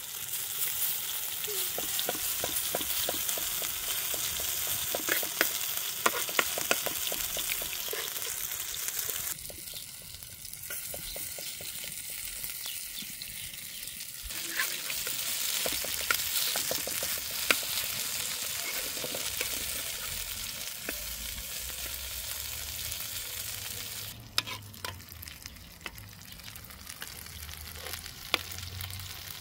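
Fritters sizzling in shallow oil in a frying pan over a wood fire, a steady hiss that drops quieter for a few seconds twice. A metal spoon scrapes and taps against the pan in short clicks as the fritters are turned.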